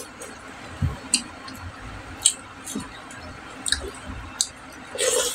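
Close-up eating sounds: wet, squishy clicks and smacks of chewing and of a hand mixing rice with kinunot, flaked stingray in coconut milk, on a plate. A short click or soft thud comes about every second, and a short louder rush follows near the end.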